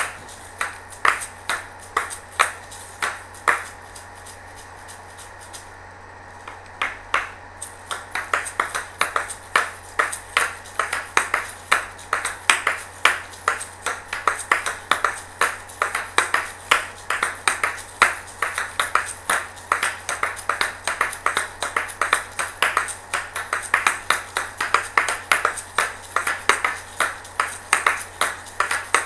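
Asalato (kashaka) shakers swung on their cord, the two hard shells clicking against each other several times a second in a driving rhythm. The clicks drop away for a few seconds about four seconds in, then come back denser and faster.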